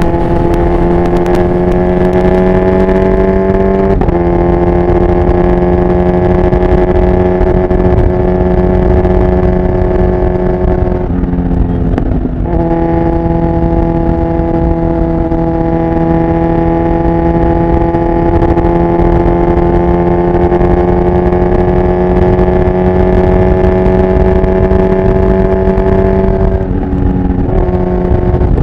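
Kawasaki Ninja 1000SX's inline-four engine pulling at highway speed, heard from the rider's seat: a steady, strong exhaust note whose pitch slowly climbs. The note dips and breaks briefly three times, about four seconds in, around twelve seconds and near the end, over a rush of wind and road noise.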